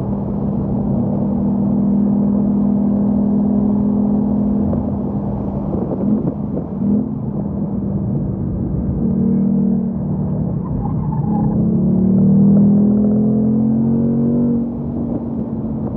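Ford Mustang Mach 1's 5.0-litre V8 heard from inside the cabin at track speed, holding a steady note. The note breaks and returns twice midway as the car shifts down through the manual gearbox, then rises in pitch and falls away near the end.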